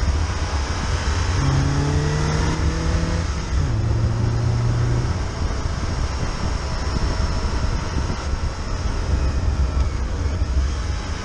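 Fiat Panda driving at speed, with a heavy steady rumble of road and wind noise. Its engine note holds one pitch, then drops to a lower pitch about three and a half seconds in and fades a little after five seconds.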